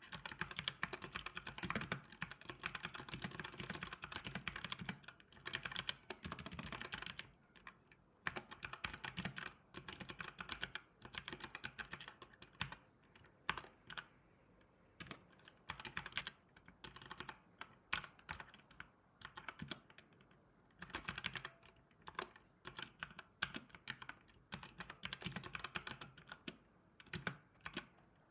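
Typing on a computer keyboard: rapid runs of key clicks broken by short pauses.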